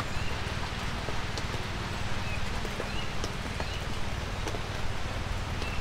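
Light rain falling steadily in woodland, with scattered sharp drop ticks over a low rumble. Short, high rising chirps from some small creature repeat every second or so.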